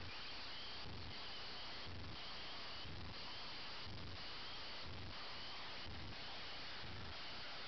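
Steady hiss with a soft low thump about once a second and faint, short, high chirps recurring throughout.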